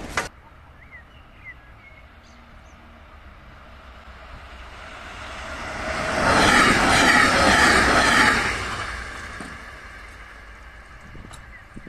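A DSB IC3 diesel train passing at speed over the level crossing: a rising rush of wheels on rail that is loudest for a couple of seconds in the middle, then fades away. A sharp click right at the start and a few bird chirps before the train arrives.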